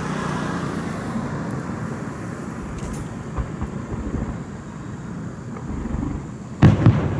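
A firework shell bursting near the end, a sharp loud bang followed a moment later by a smaller crack, over a steady low background rumble of outdoor noise.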